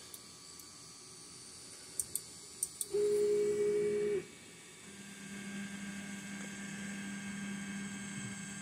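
3D printer's stepper motors driving the head and bed during an auto-level routine: a few light clicks, then a steady motor whine lasting just over a second, then a lower steady hum as the next moves run.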